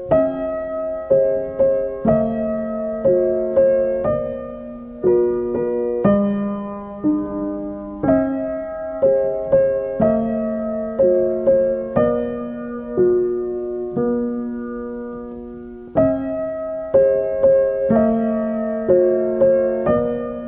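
Background piano music: a slow melody of single struck notes over held lower notes, each note fading after it is struck.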